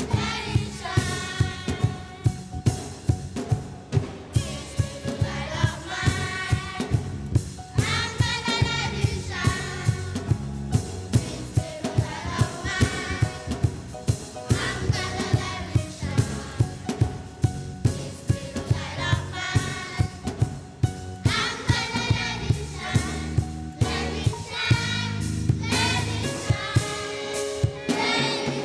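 Children's choir and a woman singing a gospel song over accompaniment with a steady drum beat.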